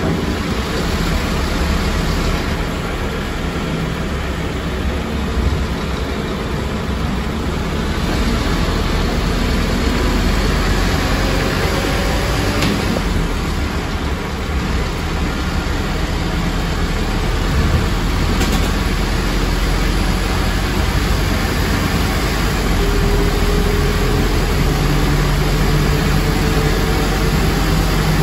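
Drivetrain of a Scania K230UB bus, its 9.3-litre Scania DC09 engine and ZF Ecomat IV 6HP504C automatic gearbox, heard through an open floor hatch: a steady low mechanical drone with a faint whine that rises slowly in pitch near the end.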